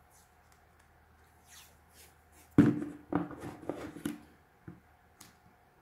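Hands working tape onto a plastic bottle: faint rustling, then a sudden sharp crackle about two and a half seconds in, followed by a quick run of crinkles and taps.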